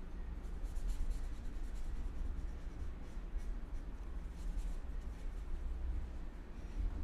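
Writing strokes scratching on a surface, a word being written out, over a steady low room rumble.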